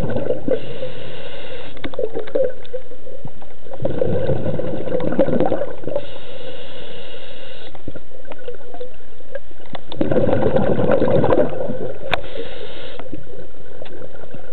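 Scuba diver breathing through a regulator underwater: a hissing inhale, then a gurgling rush of exhaled bubbles, repeated about three times.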